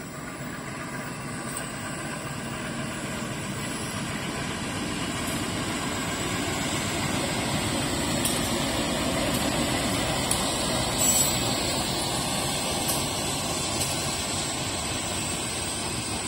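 Diesel-electric locomotive of a passenger train approaching and passing close by as it pulls into the station, its engine and wheel rumble growing louder to a peak about halfway through, with a few sharp clicks as it goes by, then the carriages rolling past.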